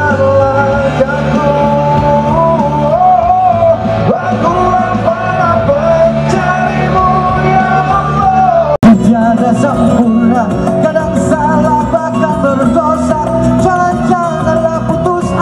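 A live song played loud over a sound system: a singer's voice carries the melody over instrumental backing. It cuts out for an instant about nine seconds in, then goes on.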